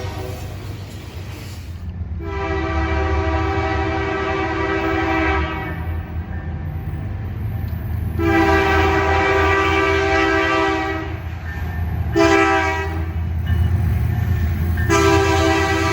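Nathan K3LA three-chime locomotive air horn sounding four blasts: long, long, short, long. This is the grade-crossing signal. A steady low locomotive rumble runs underneath.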